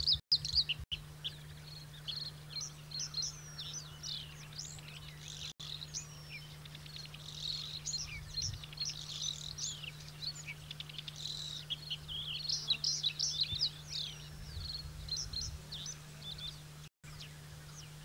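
Male bluethroat singing a long, fast, varied song of chirps, trills and whistled notes, over a steady low hum.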